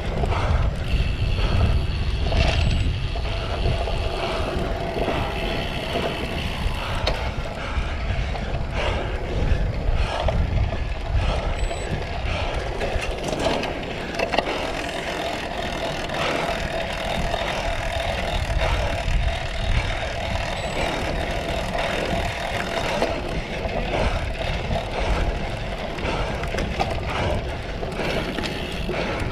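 Cyclocross bike ridden at race pace: wind rushing over the microphone, with tyre noise and the rattle and knocks of the bike over rough ground.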